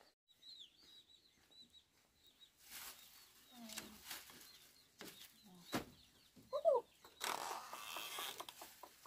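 Chickens clucking around a bamboo coop, with a sharp knock past the middle and a longer rustle near the end. Small birds chirp faintly at the start.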